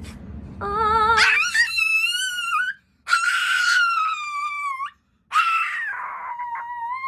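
Dog howling in three long, wavering howls with short breaks between them. The first starts low and slides sharply up in pitch.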